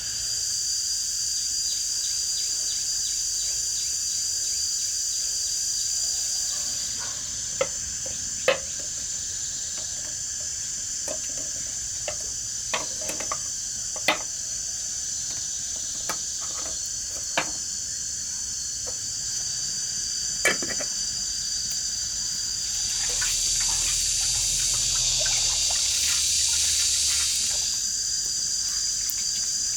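A steady high-pitched buzz, like insects, runs throughout. Light sharp clicks and knocks are scattered through the middle, and a rush of water-like noise swells for several seconds near the end.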